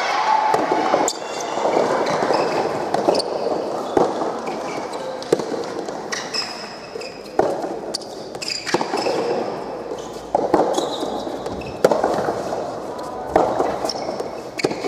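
Soft tennis rally: sharp pops of rackets striking the soft rubber ball, one about every one to two seconds, over shouting voices in a large indoor hall.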